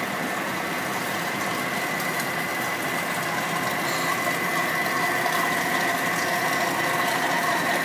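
Blender motor running steadily with a high whine, blending a chicken mousse with eggs and double cream to work air into it.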